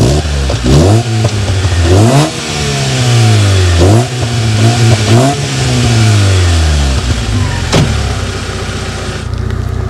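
Alfa Romeo 145's Twin Spark four-cylinder engine blipped through a series of quick revs and one longer one, heard at the tailpipe of its new custom, part-stainless exhaust, then dropping back to a steady idle near the end with a single sharp crack. It has a burble with a crackle and no rattle from the old rusty exhaust.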